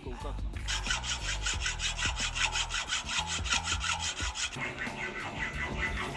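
Hand saw cutting with fast, even back-and-forth strokes for about four seconds, stopping a little past the middle, over background music with a steady bass line.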